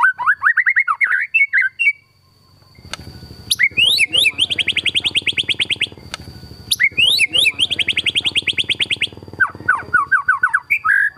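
Caged white-rumped shama singing loudly: quick varied chattering phrases, a short pause, then two long, very fast trills of repeated notes, each led in by rising whistles, and a falling series of notes near the end. The rapid machine-gun trills are what bird fanciers call 'tembakan'.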